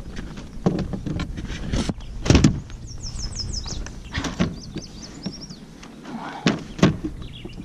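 Irregular knocks, clicks and rattles of gear being handled aboard a fishing kayak, with a quick run of short high chirps about three seconds in.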